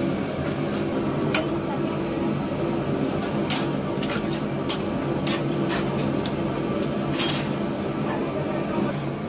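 Metal spatula stirring chunky vegetables in an aluminium pot, with irregular clicks and scrapes of metal against the pot, over a steady low hum.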